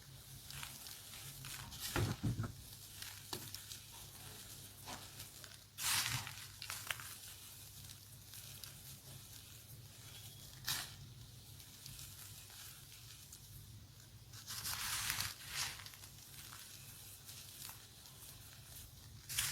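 Pieces of pink dyed gym chalk being crushed: a steady trickle of small crumbling crackles with a handful of louder crunches, the longest about a second long near the end.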